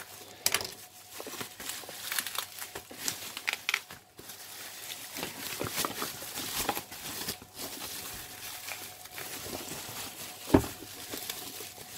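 Bubble wrap crinkling and crackling as it is handled and pulled open from around a box, with irregular tearing. A single sharp knock about ten and a half seconds in.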